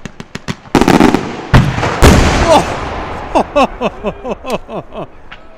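Large aerial firework shells bursting: a quick run of crackles, then three loud booms in quick succession about one to two seconds in, each trailing off. After them, a crowd of onlookers exclaim with short falling calls.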